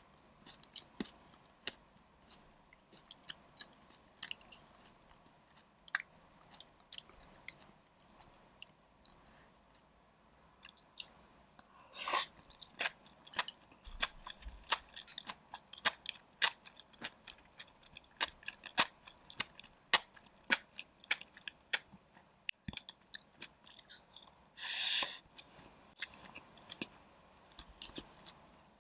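Close-miked chewing and biting of spicy dry pot (ma la xiang guo), with many crisp, irregular clicks. Two louder sounds of about half a second each come near the middle and near the end.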